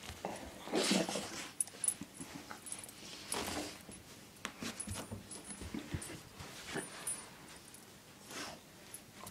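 A dog rolling and squirming on a carpet, making a few short noisy dog sounds with rubbing in between.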